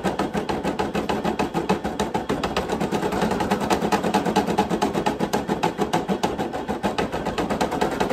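Brother PE800 embroidery machine stitching: a rapid, even clatter of needle strokes, running again after being rethreaded for a thread break.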